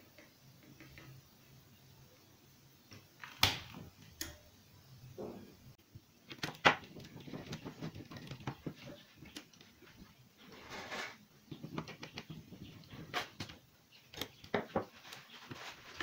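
Handling noise of a plastic electronics housing and circuit board: scattered sharp clicks, taps and knocks, starting a few seconds in and coming more often later, with a brief scrape near the middle.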